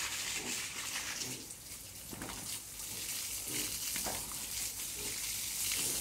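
Steady hiss of water being sprayed over pigs in their pen, with a few faint low grunts from the pigs.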